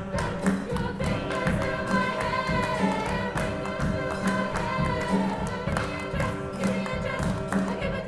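Choir singing with hand claps keeping a steady beat.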